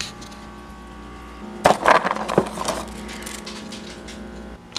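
Hard dog biscuits rattling and clinking as a hand rummages in their cardboard box: a cluster of sharp clicks from about a second and a half in to nearly three seconds in, over a steady background hum.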